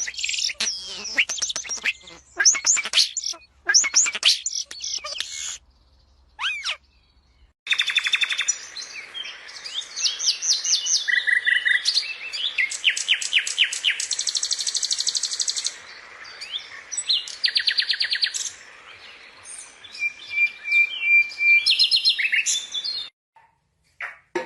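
Small birds singing and chirping: quick high notes, rapid trills and repeated phrases. There is a short break about six seconds in, then the song picks up again without the faint low hum that runs under the first part, and it stops about a second before the end.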